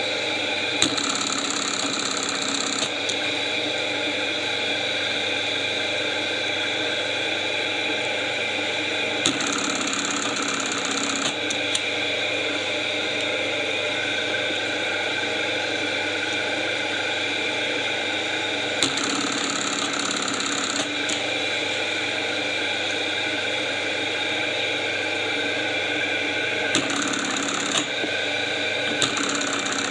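Juki 372 industrial button-sewing machine running: its motor hums steadily throughout. Several times, about two seconds each, the machine goes through a stitching cycle that sews a button onto a shirt, and the sound gets brighter and busier while it does.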